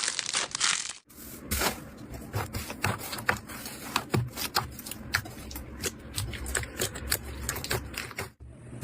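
Slime being squished and pressed by hand, giving rapid irregular sticky clicks and pops. The sound cuts off abruptly about a second in and again near the end, where one slime clip gives way to the next.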